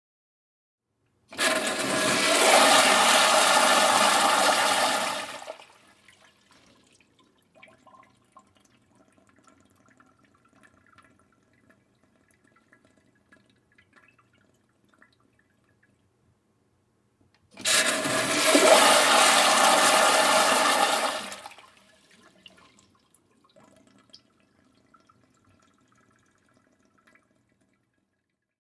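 Industrial-style public restroom toilet flushing twice: each flush starts suddenly with a loud rush of water lasting about four seconds and then cuts back to faint trickling. The second flush comes about sixteen seconds after the first.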